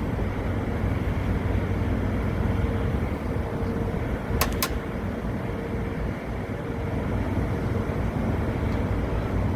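Steady mechanical hum of running machinery with a constant mid-pitched tone, broken by two sharp clicks close together about four and a half seconds in.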